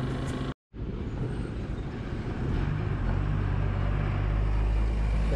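Motorcycle engine and road noise while riding. After a sudden brief dropout, a steady low rumble of vehicle engines and traffic follows, growing louder about three seconds in.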